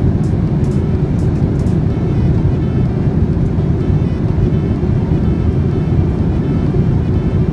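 Steady airliner cabin noise inside a Boeing 787 in flight: an even, deep rumble of engines and rushing air. A few faint high clicks sound in the first couple of seconds.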